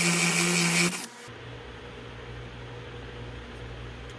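Cordless DeWalt drill running steadily at a single speed, driving a tap to cut threads into the end of a steel tie-rod tube, stopping abruptly about a second in. After it, a steady low hum with a faint hiss.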